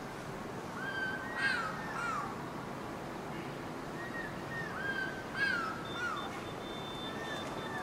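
Stork-billed kingfisher calling: two bouts of loud, falling whistled notes, each with one harsh screech, about a second in and again about four seconds in.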